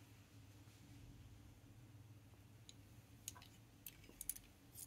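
Near silence: room tone with a low steady hum and a few faint clicks in the second half.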